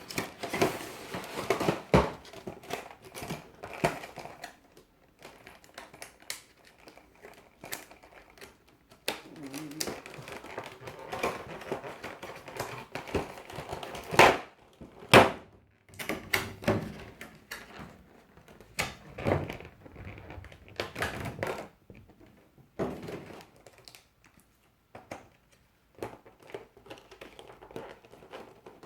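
A Pokémon card collection box being opened and unpacked by hand: packaging handled with irregular taps, knocks and crinkling, and a few sharper knocks.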